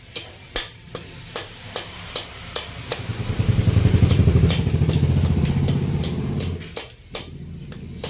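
Light metallic clicks, about two or three a second, from hand work on a bare motorcycle crankcase. About three seconds in, a passing motorcycle engine swells up, holds for about three seconds and fades.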